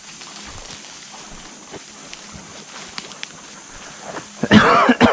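Faint rustling of brush. About four seconds in, a hunting hound bays loudly for about a second, ending in a falling note: the hound giving tongue on a scent the hunter takes for a rabbit.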